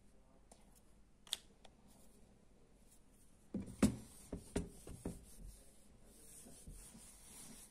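A whiteboard eraser handled and wiped over a small whiteboard: a sharp tap about a second in, then a cluster of knocks and thumps against the board from about three and a half to five seconds, followed by a faint steady hiss.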